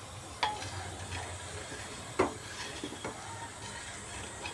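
Jaggery melting in a little water in a heavy-bottomed pan over a faint steady hiss, with a spoon knocking against the pan a few times, the loudest knock about two seconds in.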